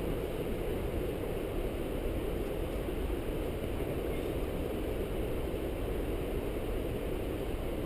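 Steady wind rumbling on a helmet-camera microphone.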